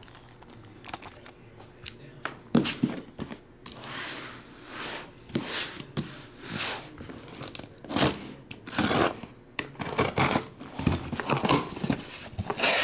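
Plastic wrapping on sealed trading card boxes being torn and crinkled: a few faint clicks, then from about two and a half seconds in repeated tearing and crackling swells.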